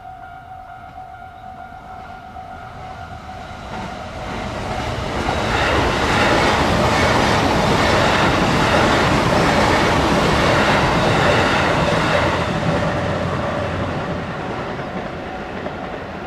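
Electric commuter train passing over a level crossing, with wheels clattering on the rail joints. It builds to a loud rush from about five seconds in, holds until about twelve seconds, then fades. At first the crossing's electronic warning bell is ringing in a steady pulsing pattern.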